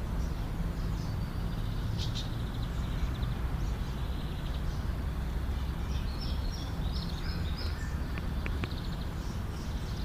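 Outdoor ambience: small birds chirping now and then, most busily near the end, over a steady low rumble.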